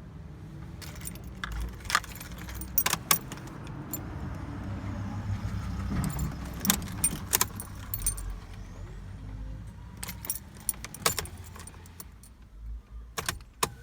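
Car keys jangling and clicking on the key ring as the ignition key of a Vauxhall Astra Mk5 is worked, in bursts of sharp clicks over a low rumble. The car is not turning over: it has a suspected electrical fault, with no dashboard lights despite a good battery.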